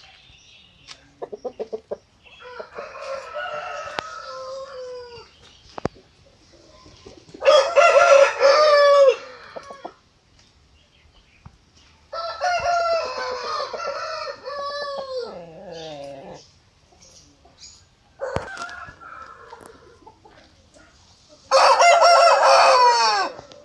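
Aseel rooster crowing: four long crows, the loudest about eight seconds in and near the end, with a few short clucks before the first.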